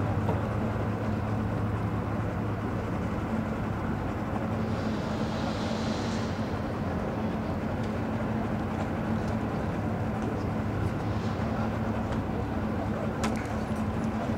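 Engine idling with a steady low hum. There is a brief soft hiss about five seconds in and a few faint clicks near the end.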